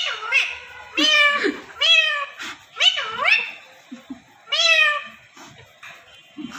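A parrot imitating a cat, giving about half a dozen meow-like calls in a row, each falling in pitch.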